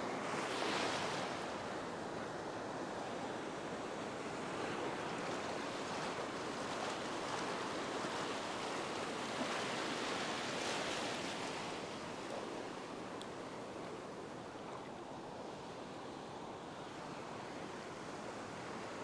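Ocean surf: small waves breaking and washing through shallow water, swelling louder about a second in and again around ten seconds in.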